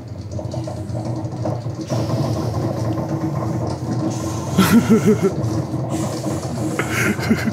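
Steady rumble of a roller coaster train running along its track, heard through a TV's speakers from a ride-along video. About halfway through, a short wavering voice-like sound rises over it.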